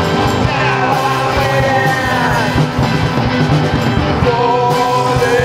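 Punk rock song played by a band on drums, bass, guitar and synth, loud and steady. Sliding, falling notes sound over the top about a second in.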